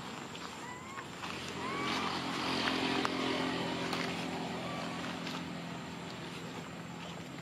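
A motor vehicle's engine running steadily nearby, swelling about two to three seconds in and then slowly fading, as if passing. Three short rising squeaks come in the first three seconds, over light crackling of dry leaves underfoot.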